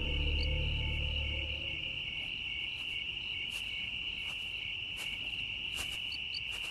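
Crickets chirping in a steady high trill, used as night-time ambience in a radio drama, with a few faint ticks. A low music drone dies away in the first second or two.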